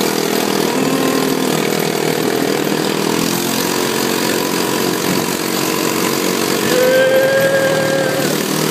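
ATV engine running steadily under way, a buzzy, even drone. Near the end a single higher tone is held for about a second and a half over it.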